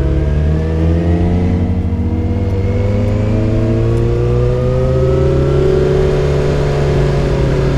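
Yamaha XJ6's 600 cc inline-four engine running through a Dominator full exhaust system with a dB killer fitted. The revs climb steadily for about six seconds under acceleration, then level off and ease slightly near the end.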